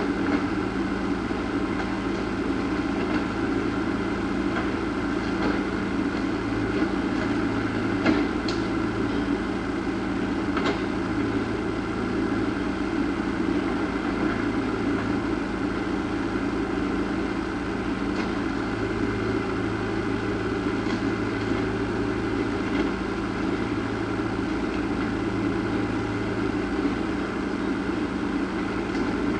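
A steady machine-like hum holding several fixed tones at a constant level, with a few faint clicks.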